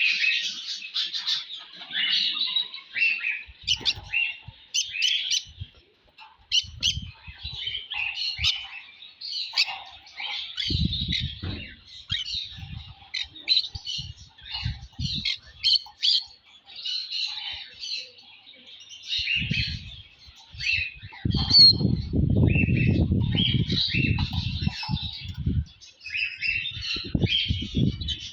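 Many small cage birds in an aviary chirping and calling over one another in a dense, continuous chatter. Bursts of low rumbling noise come through twice: briefly about a third of the way in, then for about four seconds later on.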